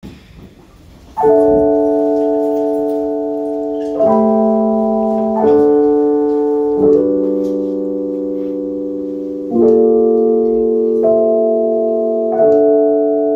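Keyboard in a piano voice playing a slow instrumental intro of sustained chords. Each chord is struck and left to ring, with a new one about every one and a half to three seconds, starting about a second in.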